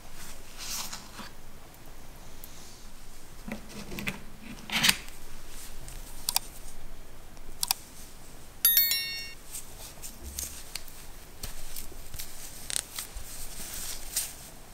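Close-up handling sounds of unboxing a phone: soft rustles, scrapes and light clicks as the phone is lifted from its box and the paper-wrapped charging cable is taken out and unwrapped. About nine seconds in, a short electronic chime sound effect plays over it.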